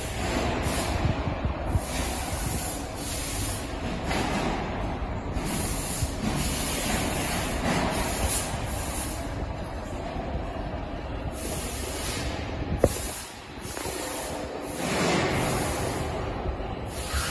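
Factory floor noise of machines running, with repeated bursts of hiss coming and going and a single sharp click about thirteen seconds in.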